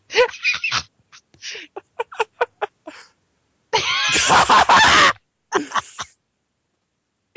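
People laughing hard in short choppy bursts, with one loud, high laugh lasting about a second and a half, about four seconds in.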